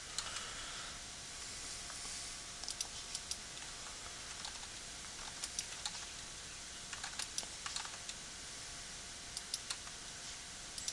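Scattered clicks from a computer keyboard and mouse, coming in small groups of a few at a time, over a steady background hiss.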